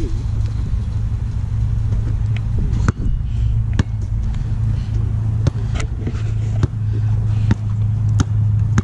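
Basketball being dribbled, sharp bounces about once a second starting around three seconds in, over a steady low rumble.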